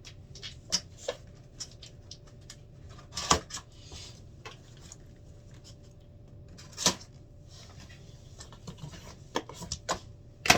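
Scattered clicks, taps and knocks of a taped cardboard box being opened by hand, with two louder knocks about three and seven seconds in and a quick run of clicks near the end.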